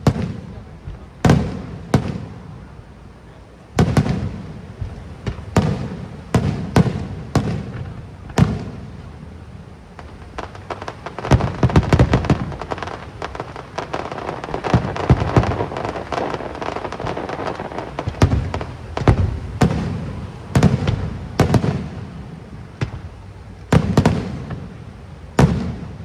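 Aerial fireworks shells bursting in a rapid series of booms, with a stretch of dense, continuous crackling in the middle before single booms resume.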